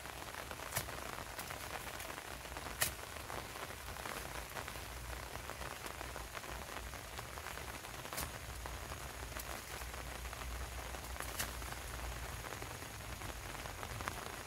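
A steady, soft pattering hiss, with a few sharp snaps about a second in, near three seconds, and twice more later.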